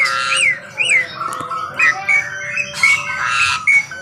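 Asian pied starling (jalak suren) singing. It opens with a couple of repeated up-and-down whistled notes, then breaks into a varied run of short chattering notes and harsh, scratchy calls.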